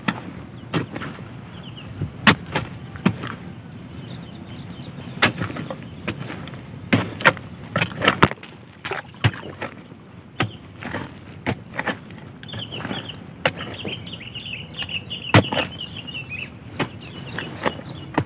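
A narrow-bladed iron digging spade chopping into dry, lumpy clay soil, sharp thuds and crunches about once or twice a second as clods break loose. A high chirping call runs for a few seconds past the middle.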